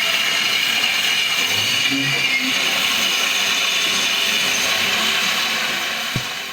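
Two steam locomotives moving slowly, with a steady hiss of steam and mechanical clanking, and a single knock near the end before the sound fades out.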